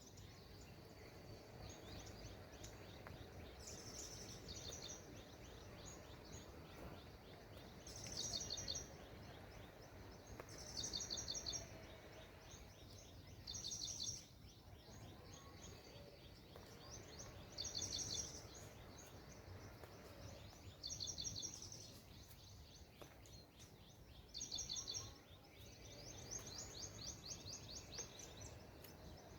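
A songbird repeating a short, high, rapid trill every three to four seconds, about eight times, over a faint steady low background noise.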